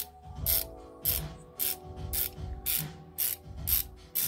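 Husky 144-position ratchet swung back and forth, about two strokes a second, each back-stroke a short burst of fine, rapid clicking from its many-toothed gear and pawl.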